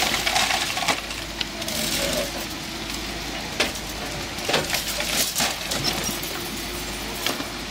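Hyundai hydraulic excavator's engine running while its arm breaks down brick walls and a concrete slab, with several sharp cracks and knocks of concrete and brick giving way and falling, most of them in the second half.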